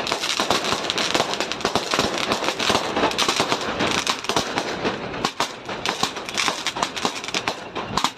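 A string of firecrackers going off in a rapid, continuous rattle of bangs.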